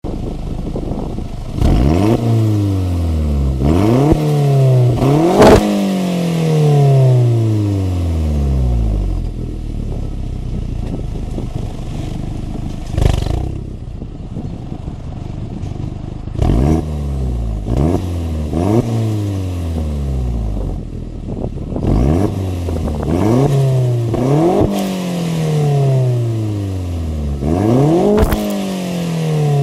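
Volkswagen Golf Mk4 GTI's 1.8-litre turbocharged four-cylinder engine free-revving through a turboback exhaust with the catalytic converter and resonator deleted: repeated quick blips that rise sharply and die away slowly, between stretches of idle. A sharp crack comes at the top of one rev about five seconds in.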